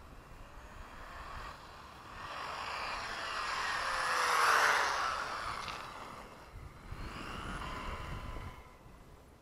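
Electric RC buggy with a 2200kv brushless motor running at speed: its motor and drivetrain whine and tyre hiss swell as it comes near, loudest about halfway through, then drop in pitch and fade as it passes. A second, softer run of the same whine follows near the end.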